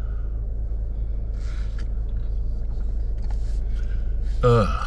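A steady low rumble, with a short breath or voice sound near the end.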